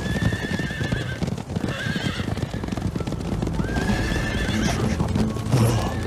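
A group of horses galloping, with dense hoofbeats throughout. Horses whinny three times: at the start, about two seconds in and about four seconds in.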